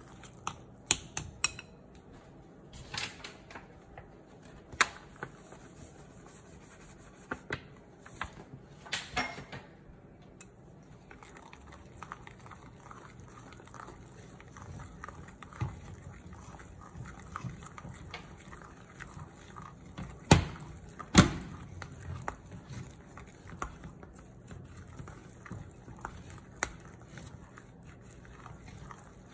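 A spatula stirring thick pancake batter in a glass bowl, working in flour: wet squelching and scraping with scattered sharp taps against the glass, the two loudest knocks coming close together about two-thirds of the way through.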